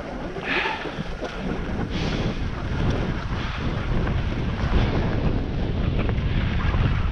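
Wind buffeting the microphone of a skier going downhill, a steady rumble, with skis hissing and scraping over groomed snow. A brief sharper scrape comes about half a second in.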